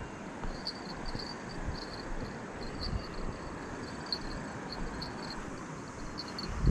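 Insect chirping in short, high-pitched pulses, several a second, stopping near the end, over a steady rush of wind on the microphone with a few soft low knocks.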